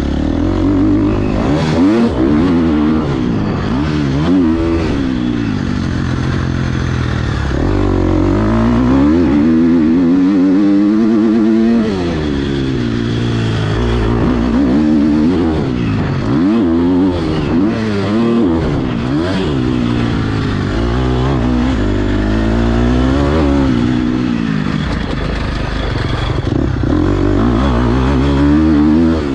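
KTM 250 SX-F four-stroke single-cylinder motocross engine under hard riding, its pitch climbing as it revs out and dropping back at each shift or roll-off, over and over.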